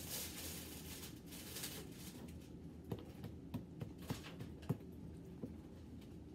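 Metal spoon scraping and tapping in a waffle bowl of ice cream: a few soft, separate clicks, from about halfway through, over faint room hiss.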